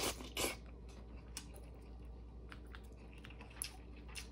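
Close-miked eating sounds: a person chewing soft pork from a bone soup, with two louder wet smacks at the start, then a few faint scattered clicks.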